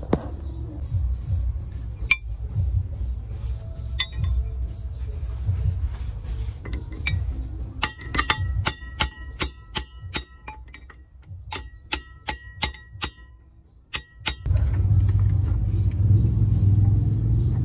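A metal wrench clinking and tapping against the steel flange of a propeller shaft's center bearing as the bearing is worked loose, with a quick run of sharp, ringing clinks in the middle. A steady low rumble starts near the end.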